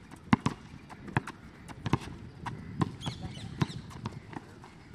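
Basketball dribbled on a court: uneven bounces, a loud one about every second with softer knocks between, mixed with players' footfalls.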